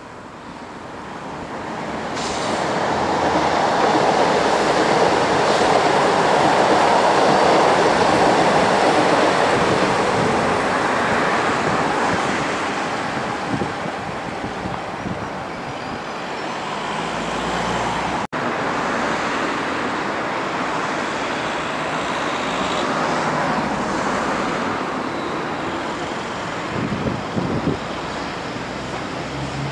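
Electric trains running past on the rails, a steady rumble and rail noise that swells over the first few seconds, stays strong for several seconds, then eases to a lower steady level. A few sharp knocks come near the end.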